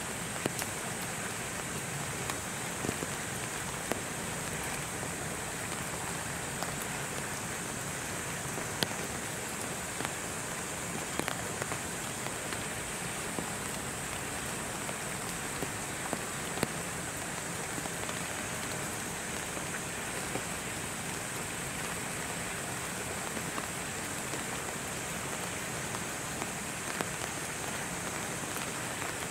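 Steady outdoor hiss with a constant high-pitched band and scattered light ticks throughout, much like falling rain.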